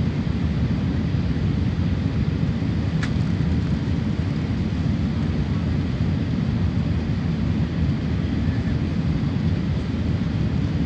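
Airliner cabin noise heard beside the wing: the steady low rumble of jet engines and rushing air, with one faint click about three seconds in.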